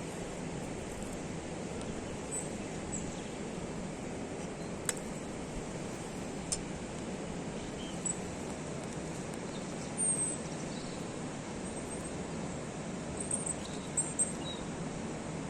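Forest ambience: a steady rushing noise, with faint high bird chirps several times in the second half and a few sharp clicks.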